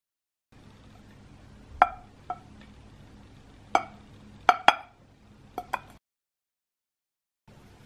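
A small white ceramic ramekin handled in the fingers, clinking sharply about seven times over a faint steady hum. Silence at the very start and for over a second near the end.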